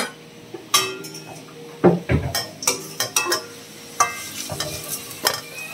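Metal kitchenware clinking and knocking: steel dishes handled and a long steel spatula stirring potato pieces in an aluminium kadai, a dozen or so separate clinks with short ringing and one heavier knock about two seconds in.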